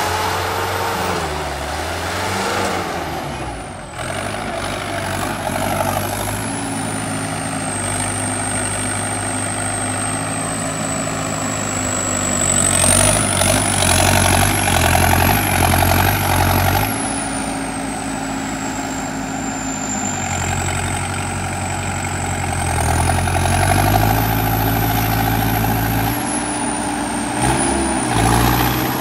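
Turbocharged tractor diesel engine run hard during a wheelie on its rear wheels, its speed holding steady and then stepping up and down. A high turbo whistle rises and falls with the engine, loudest about halfway through and again near the end.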